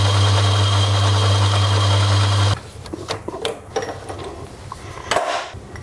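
Small metal-turning lathe running with a steady motor hum as it turns down a valve-guide drift, then switched off about two and a half seconds in. After that come light clicks and knocks from handling the chuck and workpiece.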